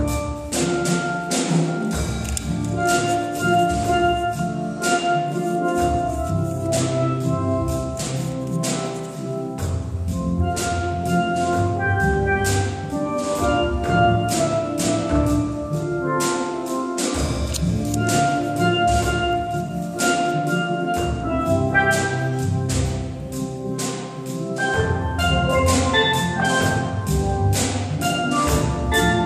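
A steel band of many steelpans playing a tune together: ringing pitched notes struck in quick runs, with sharp percussion hits throughout. The low bass notes drop out and come back in several times.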